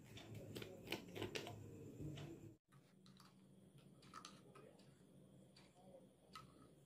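Faint clicks and taps of a small plastic bottle and its cap being handled, mostly in the first two and a half seconds, then near silence with a couple of single ticks.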